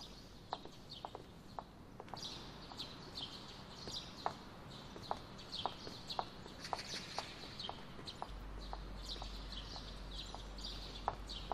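Footsteps tapping on a hard floor at an unhurried walking pace, about two steps a second, with small birds chirping throughout.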